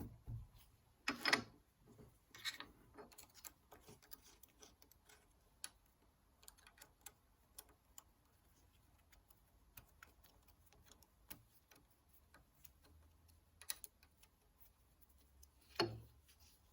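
Sparse small metallic clicks and taps of a home-made lathe cutting tool being fitted into the lathe's tool holder. The louder knocks come about a second in and near the end.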